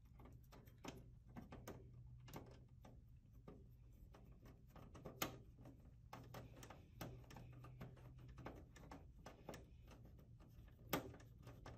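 Faint scattered clicks and small metallic taps of a screwdriver driving a screw back into a computer case's expansion-card bracket, with a sharper click about five seconds in and another near the end. A faint low steady hum runs underneath.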